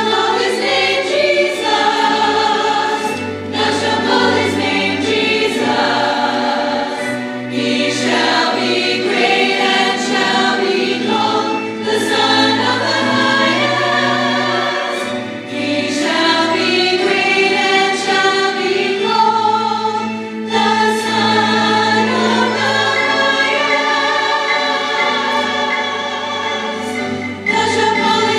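Mixed church choir of women and men singing a sacred song in parts, with held notes over low accompaniment.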